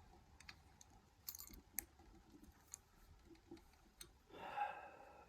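Faint, scattered clicks and taps of small metal lockpicking tools being handled.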